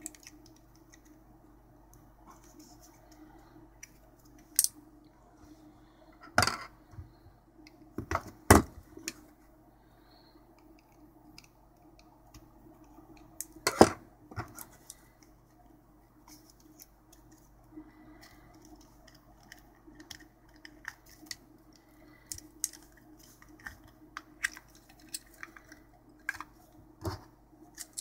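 Hard plastic clicks and knocks from a Dyson DC35 battery pack's casing and cell pack being handled and worked apart by hand. There are a few sharper knocks in the first half, then many small ticks, over a steady low hum.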